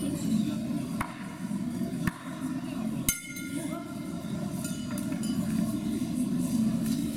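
Boxing ring bell struck once about three seconds in, ringing briefly and fading: the signal to start the round. A couple of sharp knocks come before it, over a steady murmur of voices in the hall.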